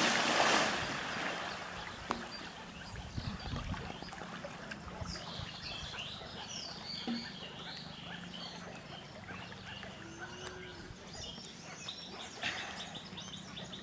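A heavy splash of a person plunging into pond water, dying away over a second or so, then softer water sloshing as he swims, with birds chirping from about five seconds in.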